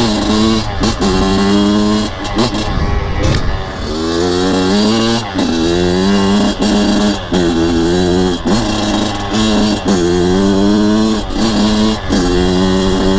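Kawasaki KX100 two-stroke dirt bike engine, freshly rebuilt top end on its break-in ride, being ridden. Its pitch climbs and drops back about eight times as the throttle is opened and let off.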